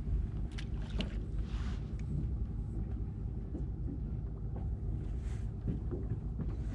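Fishing boat's engine running steadily with a low, even hum, with a few light clicks over it.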